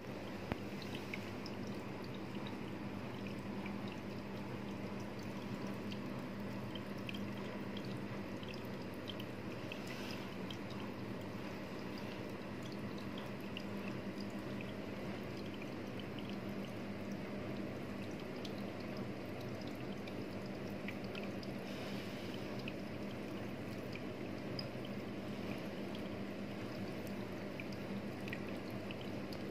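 Water trickling and bubbling steadily over a low steady hum, with small drip-like ticks scattered throughout, typical of a running aquarium.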